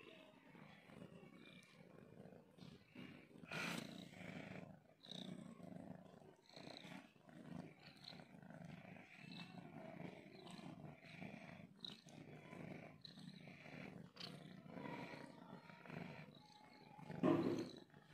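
Cat purring steadily, with scattered soft clicks and rustles and one louder bump near the end.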